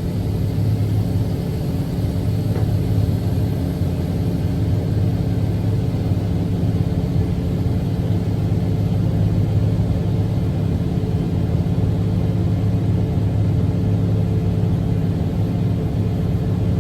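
Diesel engine of harvest machinery running steadily at constant speed, a low even drone.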